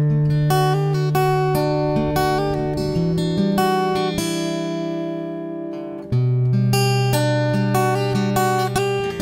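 Background music: acoustic guitar playing picked and strummed chords, with a fresh strummed chord about six seconds in.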